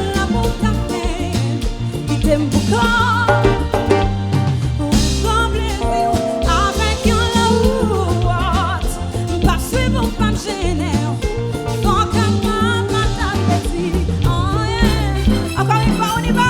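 Live konpa band playing, with a heavy bass line and a singer's sustained, wavering vocal line with vibrato over the band.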